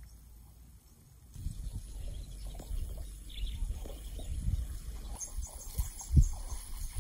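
Outdoor field ambience: a low rumble with irregular thumps starting about a second in, one thump louder than the rest about six seconds in, and faint bird chirps near the end.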